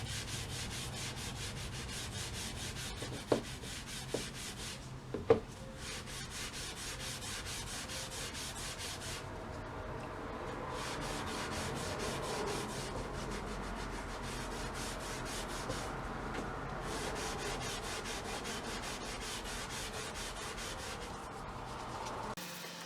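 Hand scrubbing of a metal pry bar's handle with The Pink Stuff abrasive cleaning paste and degreaser: a fast, steady rubbing with a few short pauses. There are several sharp knocks in the first few seconds, and the scrubbing stops abruptly near the end.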